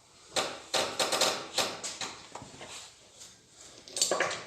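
Metal engine parts and tools clinking and knocking as they are handled and set down: a quick run of sharp clicks in the first two seconds and another cluster near the end.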